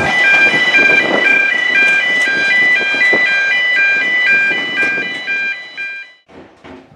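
Electronic warning tones alternating steadily between a few pitches in a regular repeating pattern, over a narrow-gauge train's wheels running slowly along street track with a couple of knocks; everything fades out about six seconds in.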